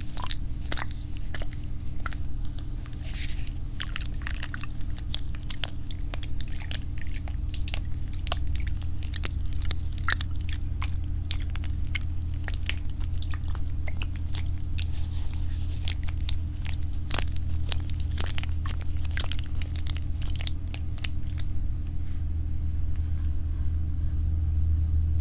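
Close-up ASMR trigger sounds: a dense, irregular run of crackly clicks and taps right at the microphone, over a steady low hum.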